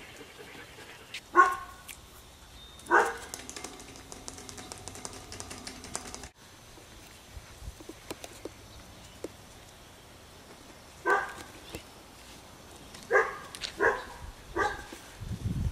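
Eight-week-old puppies barking in short, high single barks: two in the first few seconds, then four more close together near the end.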